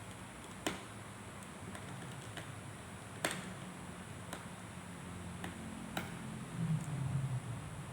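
Scattered sharp clicks and fainter ticks of small hard parts or tools being handled, three clicks standing out, over a low steady hum. A louder low rumble comes near the end.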